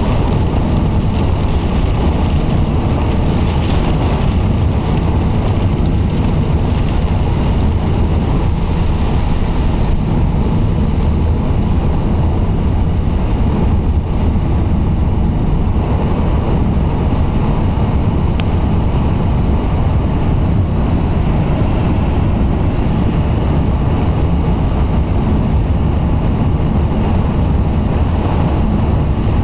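Car driving on a rain-soaked road, heard from inside the cabin: steady engine and tyre noise with a deep, even rumble.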